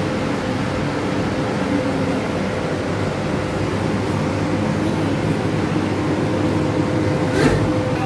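Electric fan running on a homemade foam-box air cooler: a steady rush of air with a faint constant hum. A child laughs briefly near the end.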